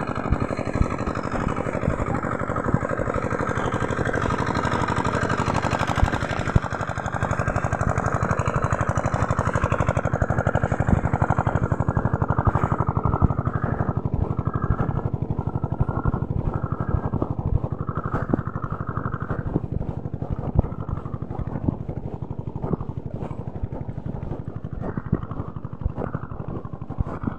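Small vehicle engine running steadily, with wind and knocks rumbling on the microphone as the camera is carried along.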